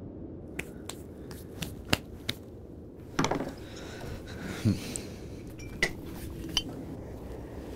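Tableware clinking and knocking on a table: a metal pot, cutlery and a glass bottle. Light scattered taps come in the first few seconds, with louder knocks about three and about four and a half seconds in.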